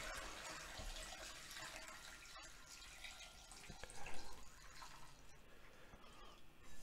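Chicken broth pouring from a stainless steel pot through a fine mesh strainer into a bowl: a faint, steady trickle of liquid, with a slightly louder splash about four seconds in as bones and meat slide into the strainer.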